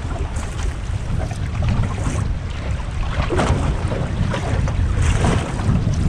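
Strong wind buffeting the microphone in a heavy low rumble, with choppy waves slapping and splashing against the hull of a small aluminium boat drifting with its engine off.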